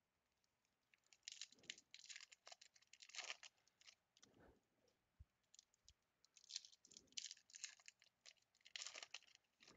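Foil wrapper of a Bowman baseball card pack crinkling and tearing as it is pulled open by hand, in quiet irregular bursts of crackle.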